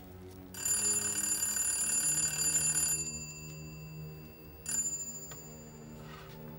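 Telephone bell ringing for an incoming call: one ring of about two and a half seconds, then a second ring that starts shortly after and dies away within about a second, before the receiver is picked up.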